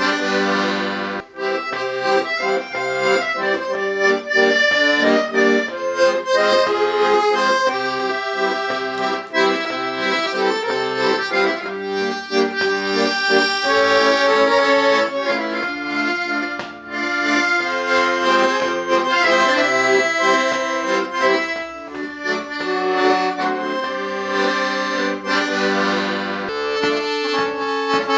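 Accordion playing a tune: a sustained melody with chords over a steady rhythmic low accompaniment.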